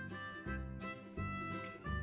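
Instrumental background music: a melody of held notes over a steady beat.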